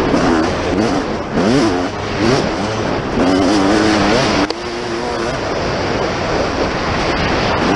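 Dirt bike engine revving hard, its pitch rising and falling over and over as the rider works the throttle and gears, with a brief sharp dip about halfway through.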